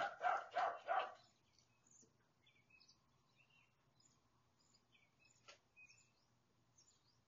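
A dog barking four times in quick succession, about three barks a second, then only faint scattered high chirps and a single sharp click.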